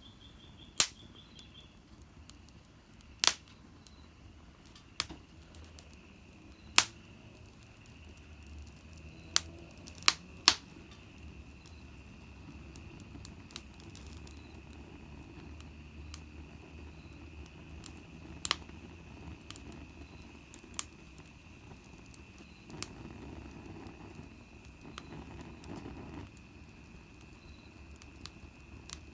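Small wood fire in a compact fire stand crackling: sharp, irregular pops every second or two, a few of them loud, over a low steady hiss. A thin steady high tone runs in the background.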